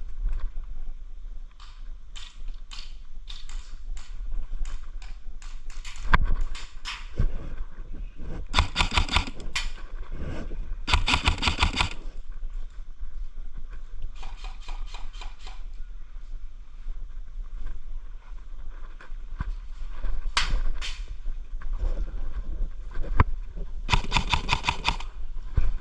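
Airsoft guns firing: scattered single shots and several short rapid-fire bursts, over low rumbling handling noise.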